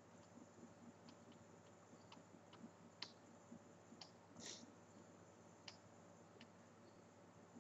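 Faint computer mouse clicks, about ten scattered irregularly, as a retouching brush is clicked over a photo. A low steady hum sits underneath.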